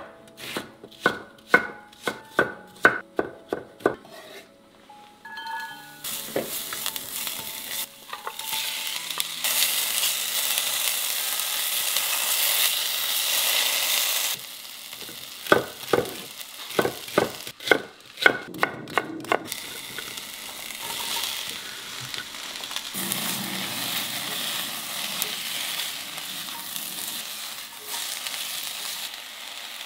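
A kitchen knife slicing an onion on a wooden cutting board, about ten quick chops. Then the sliced onion sizzling as it fries in a pan, with another quick run of knocks partway through, and steady sizzling near the end as sliced celery is stir-fried with wooden spatulas.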